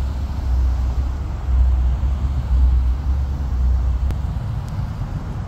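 Twin-engine jet airliner passing high overhead: a deep, uneven rumble that eases slightly after about four seconds.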